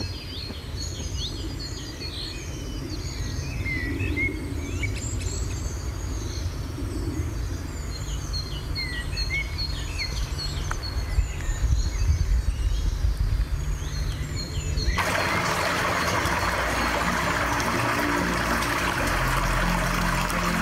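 Small birds chirping and calling in quick, repeated phrases over a low rumble. About fifteen seconds in, this cuts abruptly to the steady rush of a mountain stream running over stones.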